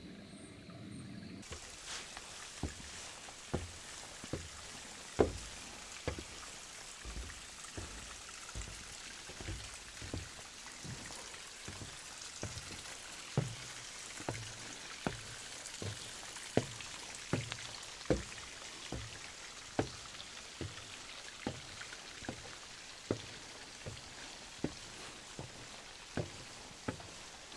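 A hiker's footsteps on a mountain trail at a steady walking pace, a little over one step a second, over a steady hiss of light rain.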